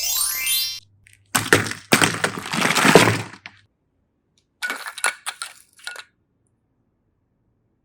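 A short rising tone, then a chocolate surprise-egg shell cracking and crunching for about two seconds as it is broken open, followed by a few light clicks.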